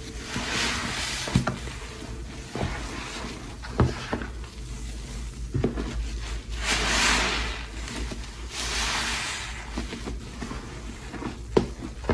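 A sponge soaked in thick dish-soap foam being squeezed and kneaded by hand: wet squelches and long hissing rushes of suds and water, three of them, with the biggest about seven seconds in. Short sharp wet pops come in between.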